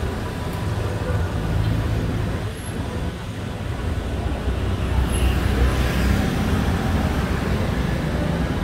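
Street traffic: a steady rumble of passing vehicles, with one passing a little louder about five seconds in.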